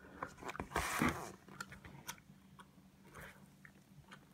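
Gloved hands handling a clear plastic tub: scattered light clicks and taps, with a brief rustle about a second in.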